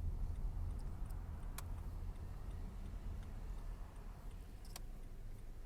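Steady low road and engine rumble inside a car's cabin as it drives slowly, with a couple of faint sharp clicks.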